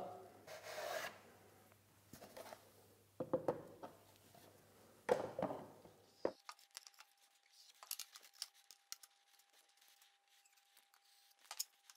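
Faint handling sounds of MDF panels and a plastic glue bottle during a glue-up: a few soft knocks as panels and the bottle are set down and fitted into the clamps, then scattered light clicks and taps.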